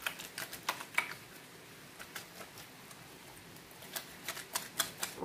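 A bar of homemade stain-removing soap being rubbed onto a wet cloth in a plastic basin: irregular small clicks and scrapes, busiest in the first second and again near the end.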